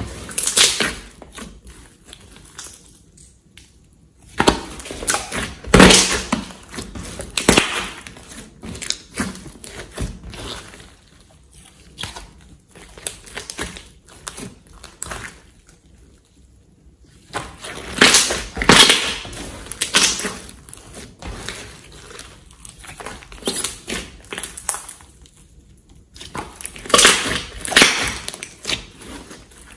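Hands squeezing, pressing and kneading a large mass of slime: wet squishing with crackly clicks, coming in bursts with quieter pauses between.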